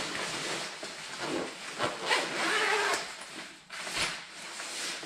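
Rustling and zip sounds from a textile motorcycle jacket being handled as its detachable thermal lining is pulled out, with a short knock about four seconds in.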